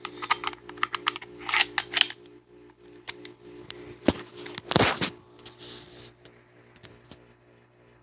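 Clicks and clacks of hard metal parts being handled, most likely the all-steel PHP MV 9 mm pistol: a quick run of clicks in the first two seconds, a single sharp click about four seconds in, then a louder, longer clack just before the five-second mark.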